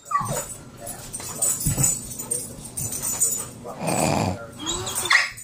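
Ridgeback dog making short, excited noises as it leaps at soap bubbles, with a brief whine here and there and a louder rough burst about four seconds in.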